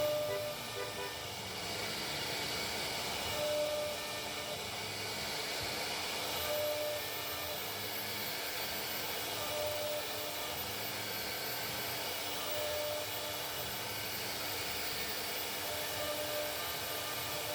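CNC router running and cutting: a steady machine whine and hiss, with a short tone that comes back about every three seconds.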